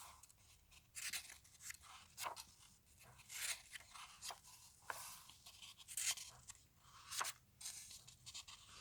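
Faint, short rustles of a comic book being handled, its paper and covers crinkling in separate brushes about once a second.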